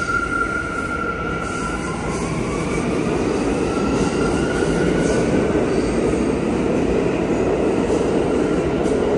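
Bombardier R179 subway train pulling out of the station and picking up speed: a whine from its electric traction motors climbs in pitch over a rumble of wheels on rail that grows louder.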